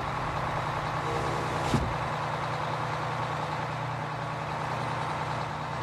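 Bus engine running steadily, with a brief click about two seconds in.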